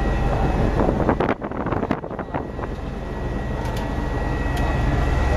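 Zeppelin NT airship's engines and propellers heard as a steady drone inside the gondola cabin in cruise flight. The drone drops briefly about a second and a half in, then comes back.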